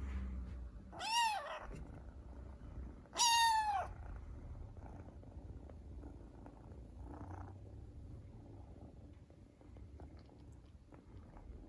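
Bengal kitten giving two thin, high meows about two seconds apart, the first rising then falling, the second louder and falling in pitch. They are the kitten's plaintive cries for help getting down.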